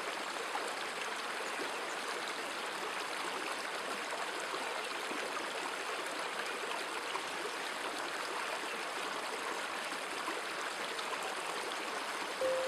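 Steady rush of running stream water, with no distinct events.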